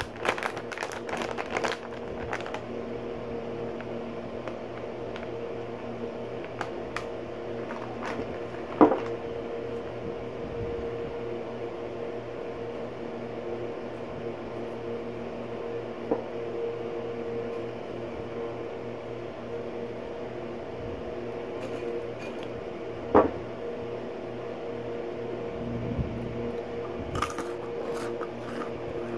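A steady machine hum throughout, with a few fixed low tones. In the first couple of seconds a foil snack bag crinkles and snack pieces rattle, and two sharp clicks stand out, about 9 seconds in and again about 23 seconds in.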